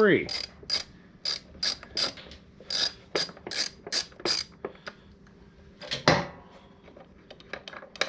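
Ratchet wrench with a T40 Torx bit clicking in short runs as the turn signal's mount bolt is broken loose and backed out, about ten clicks over the first four and a half seconds. A single louder knock comes about six seconds in.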